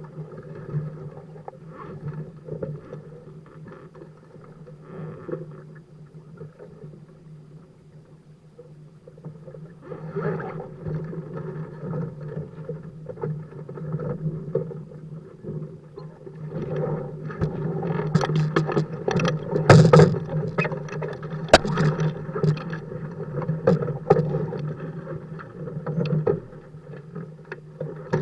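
Water rushing and splashing along the hulls of a sailing Dart 15 catamaran. It grows louder in the second half, with many sharp slaps of water; the loudest comes about two-thirds of the way through.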